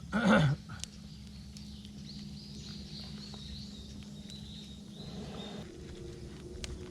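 Campfire crackling with scattered sharp pops while small birds chirp repeatedly in the background. A short, loud, wavering call, voice- or animal-like, sounds right at the start and is the loudest thing.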